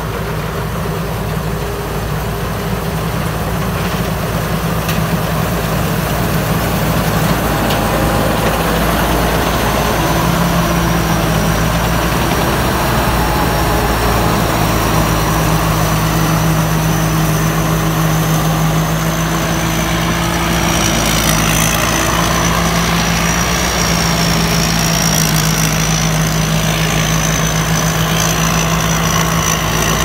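Rice combine harvester's engine running steadily while the machine cuts and threshes standing rice. The machine gets louder over the first several seconds as it approaches, and a thin high whine from the machinery comes in and strengthens later on.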